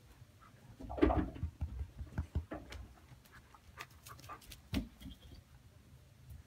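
A dog moving about on straw: one short loud noise about a second in, then scattered light scuffs and clicks.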